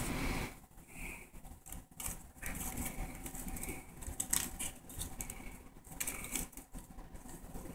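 A small cat scuffling in a wicker basket as it claws and wrestles a sock, with irregular rustling and scratching of cloth and wicker.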